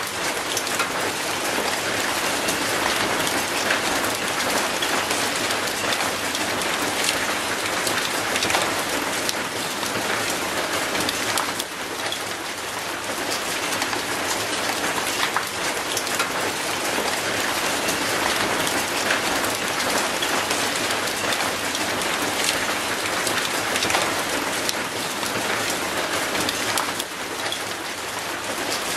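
Steady rain falling on an old rusty metal gate and mossy concrete, with many single drop hits heard through the rain.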